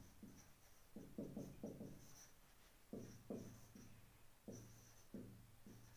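Marker pen writing on a whiteboard: faint short strokes in quick clusters, several a second.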